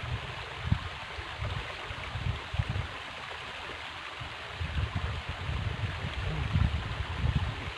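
River water flowing with a steady hiss, along with irregular low rumbles that come and go.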